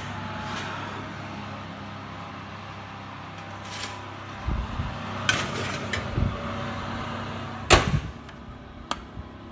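Electric oven running with a steady low hum, over handling knocks and scrapes in the kitchen, and one sharp bang about eight seconds in.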